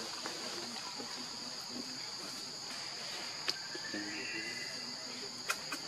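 Steady high-pitched drone of insects in a forest chorus, holding two constant tones, broken by a few sharp clicks in the second half.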